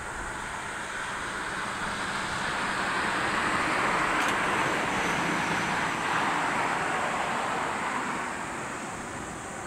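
Boeing 787 jetliner on final approach with its gear down, passing low overhead: the rushing jet-engine noise swells to a peak around the middle and eases off toward the end.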